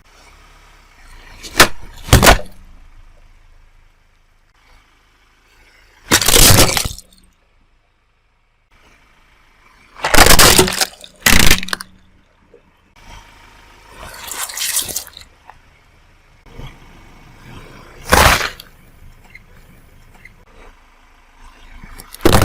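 A car wheel crushing objects in a run of separate cracks and crunches, about seven in all, some a sharp snap and some a longer crunching break.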